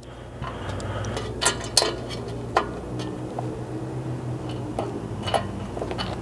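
A handful of sharp metal clicks and clinks as a hex bit and a socket on cordless drivers are seated onto a small socket cap screw and its nylock nut, over a steady low hum.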